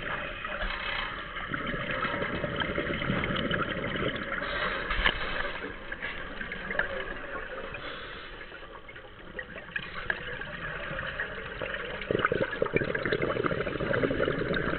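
Underwater scuba sound: a diver's regulator breathing and exhaled bubbles gurgling and crackling, swelling about a second in and again near the end.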